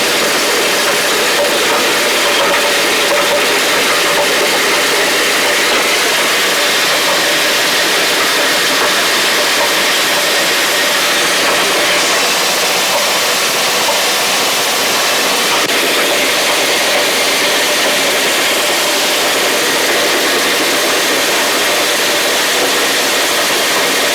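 Feed milling machine running steadily under load as it grinds dried feed ingredients: a loud, even mechanical noise with a faint steady hum.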